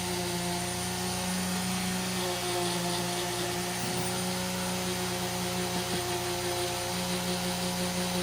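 Antique Foredom flexible-shaft rotary tool running steadily, its hanging motor driving a soft metal brush through the cable to scrub black residue off a pocketknife blade. A steady hum with several held tones.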